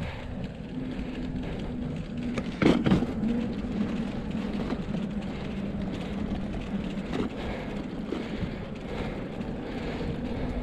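Bicycle tyres rolling over the wooden plank deck of a footbridge: a steady low rumble with a faint hum, and a single sharp thump about three seconds in.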